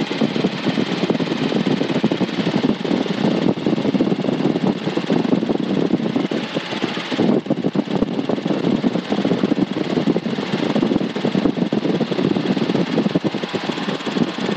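Robinson R22 Beta II helicopter in flight, its engine and rotor noise heard through the intercom headset microphones as a steady dense drone with a fast pulsing texture.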